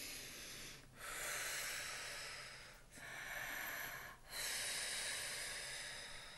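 A woman taking slow, deep calming breaths in and out as a deep-breathing exercise, four breath sounds of a second or two each with short pauses between.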